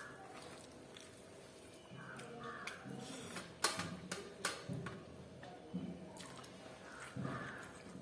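Close-up eating sounds: a person chewing fried chicken and rice, with wet mouth smacks and several sharp clicks, the loudest a little past the middle.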